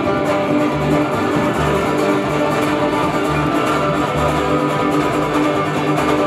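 Live string band music: a plucked upright double bass under strummed acoustic guitars.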